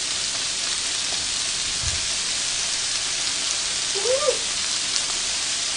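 Whole shrimp sizzling on a hot grill plate: a steady hiss with scattered small pops.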